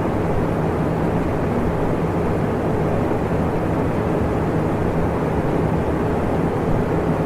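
Electric fan running steadily: an even rush of air with a faint low hum underneath.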